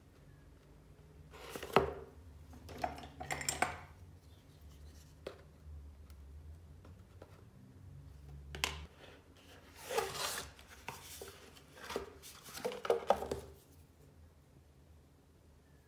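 Cardboard toothpaste boxes and plastic toothpaste tubes handled on a countertop: scattered rustles, scrapes and light knocks in short bursts, the sharpest knock about two seconds in.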